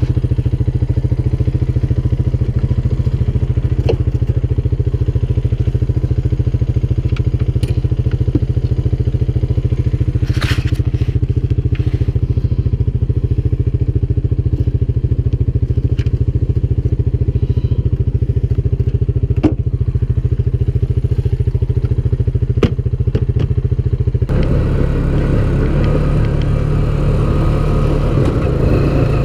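ATV engine idling steadily close by, with a few knocks and clatters from gear being handled at its rear cargo box. About 24 seconds in, the engine picks up and the quad drives off, and the sound turns rougher and noisier.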